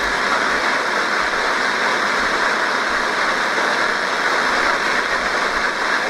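Radio static: a steady, even hiss from a radio receiver between spoken alert passages, strongest in the upper middle range.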